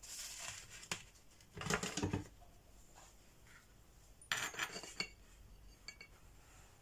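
Metal kitchen utensils, a knife and a cake server, clinking and scraping against a slate serving board in a few short bursts, the loudest about two seconds in and again past four seconds as the server slides under a slice of brownie.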